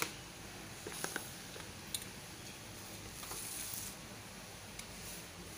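A cloth wiping kitchen surfaces, with a few light taps and knocks as items on the counter are handled and a short soft rubbing hiss about three and a half seconds in.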